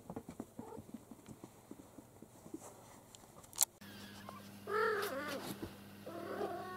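Kittens at play: faint scuffles and patters of paws on a carpet, with one sharp click a little past halfway. Then a steady low hum and a short mewing call about five seconds in, followed by a fainter call.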